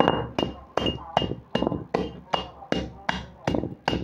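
A metal pestle strikes dry clay chunks in a stone mortar in a steady rhythm of about two and a half strikes a second. Each strike crunches the clay and leaves a short, high metallic ring.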